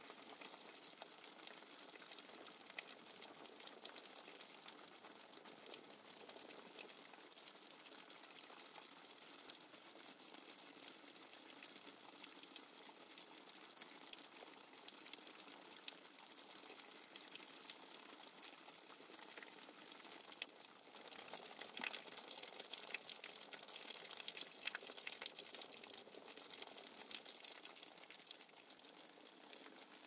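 Light rain falling on foliage: a soft, even hiss of rain with many small drop taps on leaves, growing a little louder for a few seconds about two-thirds of the way in.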